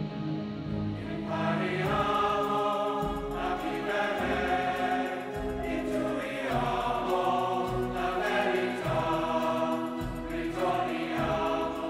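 Choral background music: a choir singing sustained chords that change every second or two.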